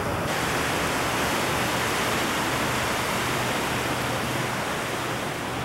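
Steady rushing of wind and water heard from aboard a moving canal tour boat, with the boat's engine humming low beneath it.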